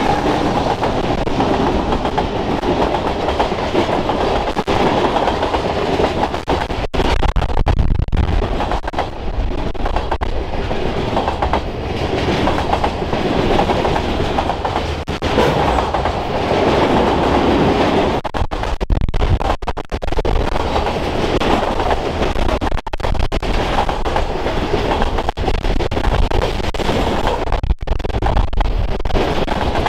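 Norfolk Southern freight train passing close at trackside, covered hoppers and tank cars rolling by with a loud, steady wheel-on-rail rumble and clatter.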